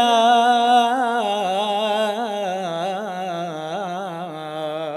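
A priest's solo voice sings a church hymn in a maqam style, drawing out one long wordless melisma with wavering ornaments. The line sinks slowly in pitch, fades, and breaks off near the end.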